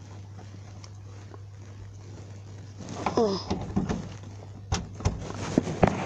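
Footsteps and knocks from walking with a handheld tablet, coming as a string of sharp clicks in the second half, with a short falling squeak about three seconds in. A low steady hum runs underneath.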